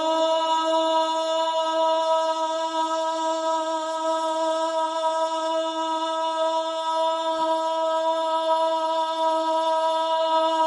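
A man's voice chanting the adhan, the Islamic call to prayer, holding the 'Allahu akbar' phrase on one long, steady note.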